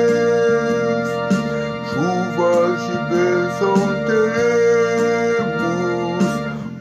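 Instrumental hymn music on keyboard: held organ-like chords with a bass line stepping beneath them and a melody moving above.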